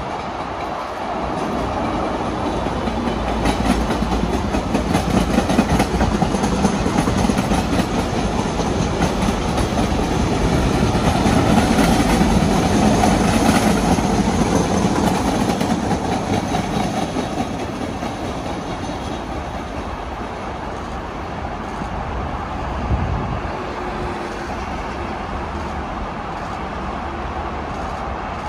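MBTA Red Line rapid-transit train passing on a nearby track: a rumble of wheels on rail that builds, holds through the middle with clicks over the rail joints, and fades away in the second half. A single thump comes near the end.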